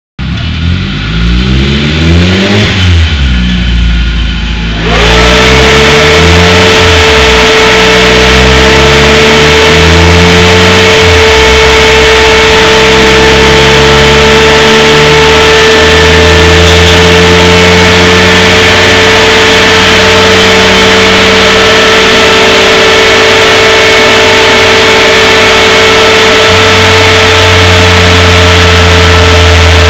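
Opel Kadett's turbocharged C20LET four-cylinder engine blipped up and down on a chassis dyno. About five seconds in, a large cooling fan starts with a loud, steady rushing whine that covers everything, and the engine keeps idling and revving beneath it.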